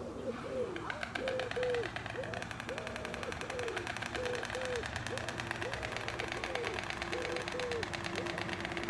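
White stork clattering its bill: a fast, even rattle of wooden-sounding clicks, with hollow rising-and-falling notes repeating under it. A steady low hum joins about halfway through.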